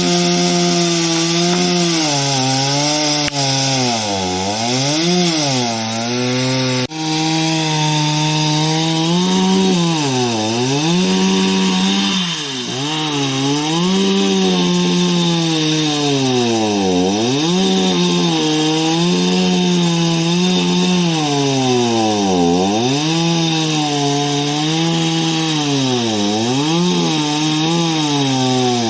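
Chainsaw cutting through a tree trunk. The engine runs at high speed, and its pitch repeatedly drops and recovers as the chain bites into the wood and bogs under load.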